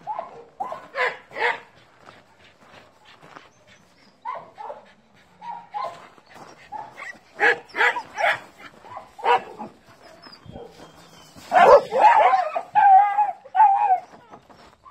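Dogs barking in short runs of quick barks, with a louder stretch of barking and a drawn-out wavering whine near the end.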